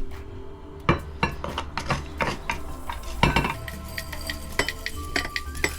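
A metal utensil clinking and scraping against a pan or dish in irregular knocks, the loudest strikes about a second and just over three seconds in.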